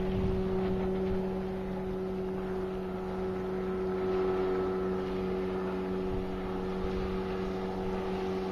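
Suzuki DT 9.9 two-stroke outboard motor running at speed on a planing inflatable boat, holding one steady pitch.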